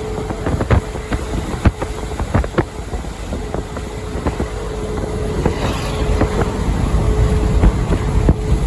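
Road and wind noise of a vehicle driving at highway speed: a steady rumble with a faint hum, broken by frequent sharp knocks and rattles, growing a little louder near the end.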